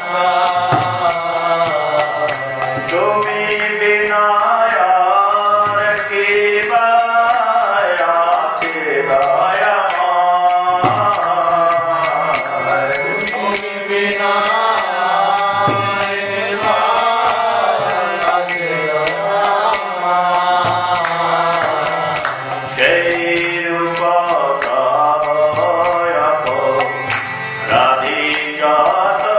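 A man chanting devotional verses in a sung, melodic line, with a steady high clinking beat behind the voice.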